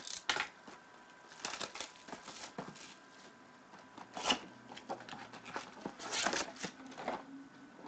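Hands opening a cardboard hobby box of trading-card packs: cardboard and foil-wrapped packs rustling and scraping in short, irregular bursts.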